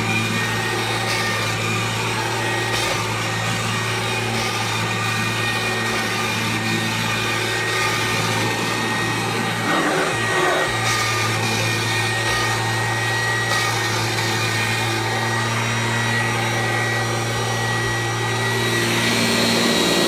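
1997 Kirby G5 upright vacuum cleaner, which has a metal fan, running while pushed over carpet: a steady motor hum with a thin high whine, briefly dipping about halfway through.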